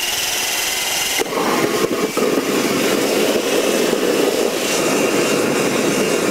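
Homebuilt kerosene-fuelled backyard gas-turbine jet engine running on its own in a self-sustaining run. A hissing whine gives way, about a second in, to a loud steady roar, with a high whine held throughout.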